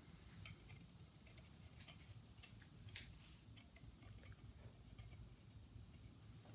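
Near silence with faint, scattered small clicks and ticks of small metal parts being handled as a threaded end piece is screwed onto a phonograph lid-support tube.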